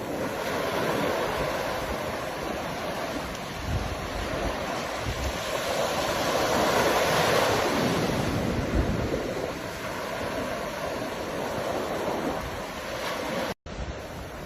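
Ocean surf washing in: waves swelling and receding in a steady rush, louder about a second in and again around the middle. The sound cuts out for an instant near the end.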